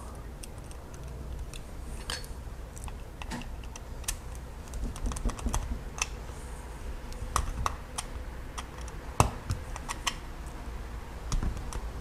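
Small, irregular clicks and ticks of a screwdriver working a terminal screw on a plastic electrical plug, tightening a wire under the screw, with one louder click about nine seconds in.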